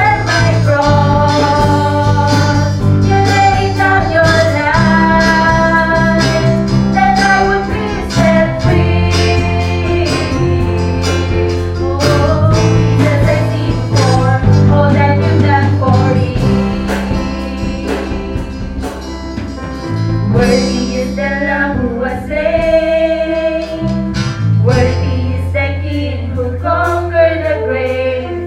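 Live worship band playing a song: women singing a melody over electric bass, acoustic guitar and keyboard, the bass holding long notes that change every few seconds.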